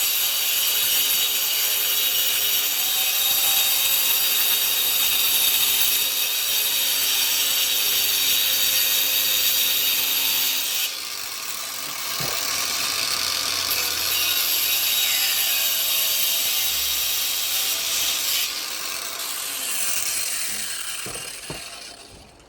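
Hyundai 20V cordless angle grinder grinding old mortar off a brick: a steady, loud, high grinding whine. It eases off briefly about halfway through and winds down near the end.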